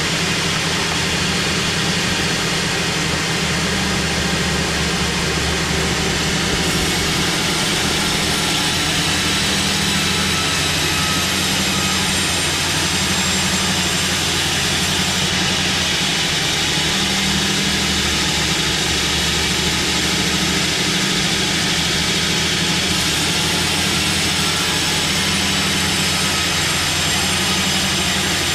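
Sawmill running steadily: a low machine drone under the continuous hiss of the saw blade cutting hardwood.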